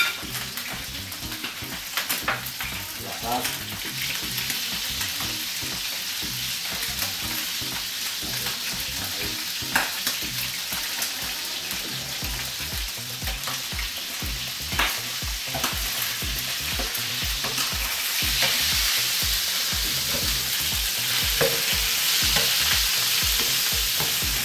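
Rabbit pieces frying in olive oil in a paella pan: a steady sizzle that grows louder about three-quarters of the way through, with a few sharp clicks.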